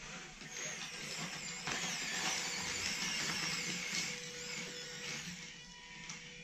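Electric linear servos of an RC excavator whirring as they drive the boom and bucket, with the bucket scraping into a pile of wood chips. The sound is loudest from about a second and a half in until near the end.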